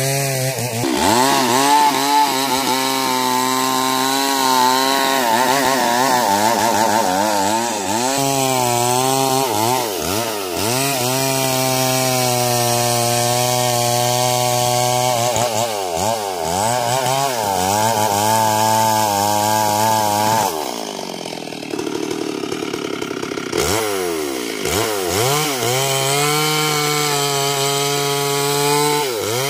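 Stihl MS 382 two-stroke chainsaw running at high revs while cutting into a felled sengon log. Its pitch dips and recovers several times. About two-thirds through it drops to a slower speed for a couple of seconds, then revs back up.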